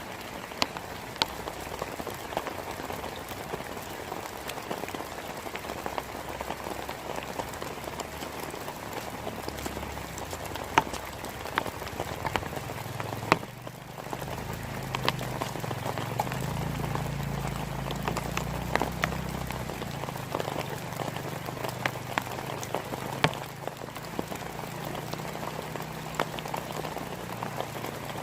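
Heavy rain falling steadily, with many sharp drops ticking close by. A low rumble joins for several seconds in the middle.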